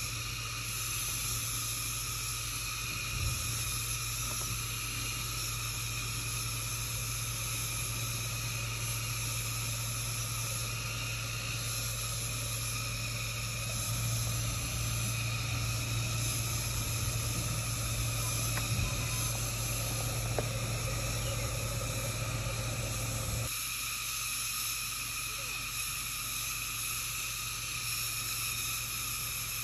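A steady chorus of forest insects over the low rumble of an SUV's engine as it crawls slowly down a rough dirt trail. The rumble stops abruptly about three-quarters of the way through, while the insects go on.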